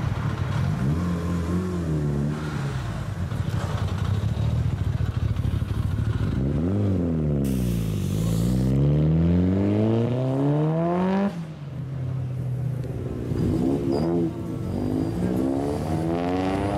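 Engines of lowered, modified cars pulling away one after another. One car accelerates hard, its engine pitch climbing for several seconds before cutting off abruptly about two-thirds of the way through. Another engine revs up near the end.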